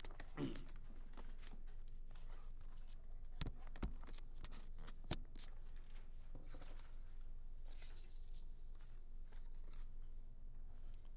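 Room tone with a low hum, broken by a few sharp knocks and clicks in the middle and short bursts of rustling later on.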